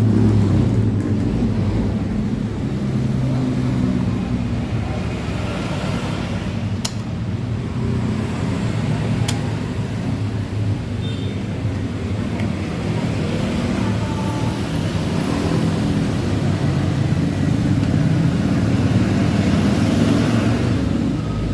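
Honda ADV 150 scooter engine running steadily, with two sharp clicks about seven and nine seconds in.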